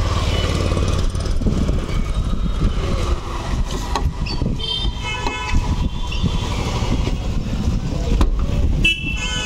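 Street traffic rumbling steadily, with a vehicle horn honking about five seconds in and again near the end.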